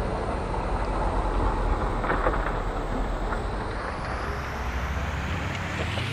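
Heavy diesel construction machinery running with a steady low rumble, with a few short knocks about two seconds in.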